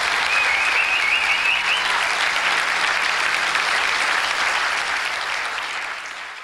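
Audience applauding at the end of a song, with one high wavering cheer rising over the clapping in the first two seconds; the applause dies away near the end.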